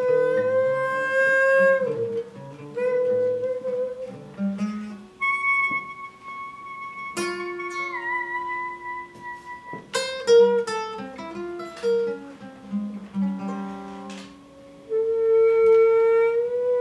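Improvised duet of an acoustic guitar and a wind instrument: scattered plucked guitar notes under long held wind tones, one of which slides down a little about eight seconds in.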